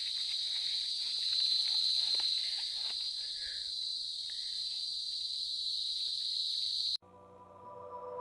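Steady, high-pitched drone of insects calling in farm vegetation. It cuts off abruptly near the end, and guitar music fades in.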